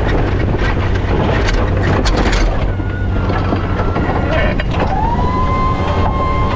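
Fisher snowplow on a pickup pushing through heavy wet snow: a dense steady rush of snow, wind and truck noise at the blade-mounted camera, with scattered knocks. A steady whine comes in about five seconds in.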